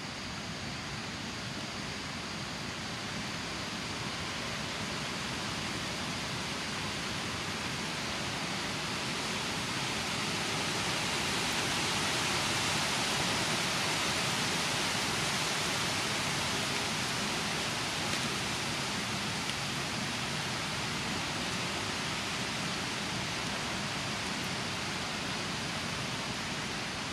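Steady outdoor hiss, with no clear single source, that swells gradually to its loudest about halfway through and then eases off.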